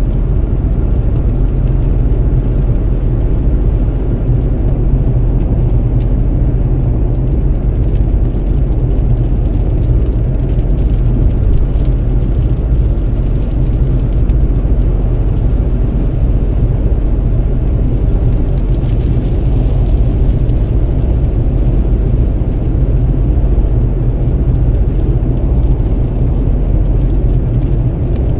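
Car driving at motorway speed: a steady low rumble of tyres and engine.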